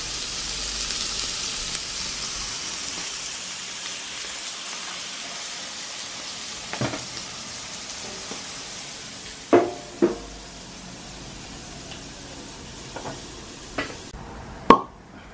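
Beef slices sizzling on an electric indoor grill, a steady hiss that slowly fades and drops away near the end. A few short sharp knocks, like utensils or dishes, come in the second half, the loudest near the end.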